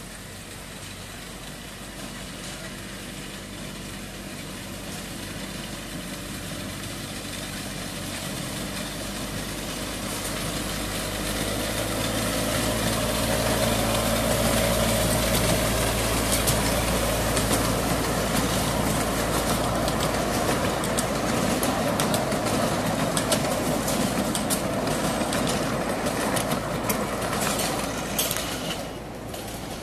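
Engine of a 1988-built 10¼-inch gauge miniature railway locomotive hauling a passenger train: a steady engine note that grows louder as it approaches, passes close by about halfway through with wheel noise on the track, then falls away near the end.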